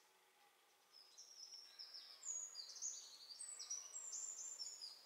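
A small songbird singing: a high-pitched run of short, quick notes, each dropping in pitch, starting about a second in.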